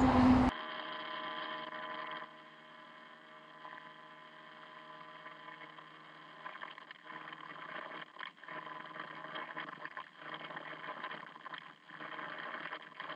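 A motor running steadily, several steady tones over a faint hum, heard through a muffled, narrow-band recording; it grows louder and more uneven about six seconds in.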